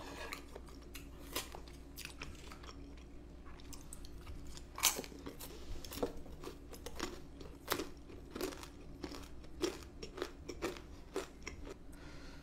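Close-miked chewing of food: irregular wet clicks and crunches. The loudest is about five seconds in.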